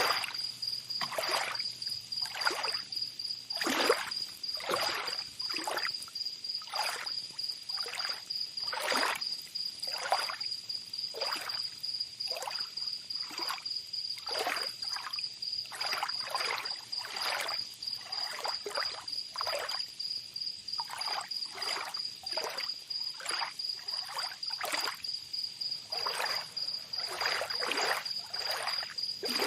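Tropical beach ambience: small waves lapping and splashing at the water's edge, one to two splashes a second, under a steady high insect trill.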